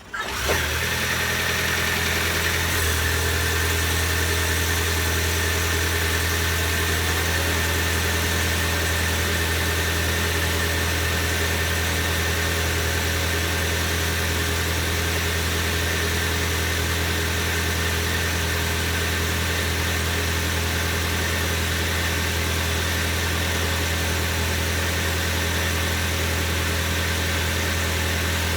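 Ford Maverick hybrid's 2.5-litre four-cylinder engine starting up, settling about three seconds in, then idling steadily. It has just been refilled after an oil change and is run so the oil pump circulates the fresh oil before the level is rechecked.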